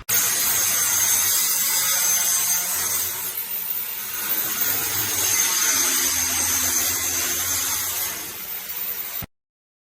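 A power tool running steadily at work, a dense noisy sound that cuts off abruptly near the end.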